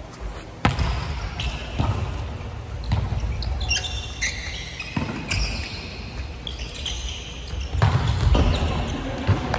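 A volleyball being struck during a rally in an echoing gymnasium: a sharp serve hit about half a second in, then a string of bumps and sets, and a loud spike near the end. Short high squeaks, from sneakers on the wooden court, come in the middle.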